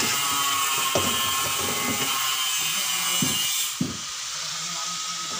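Raw pork being handled in a stainless steel sink: a few knocks and thuds as the meat is moved from a metal bowl onto a cutting board, over a steady hiss that cuts off suddenly about four seconds in.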